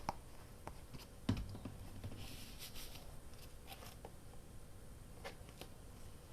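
Paper and small craft items being handled on a desk: scattered light taps and knocks with a brief paper rustle, the loudest knock a little over a second in.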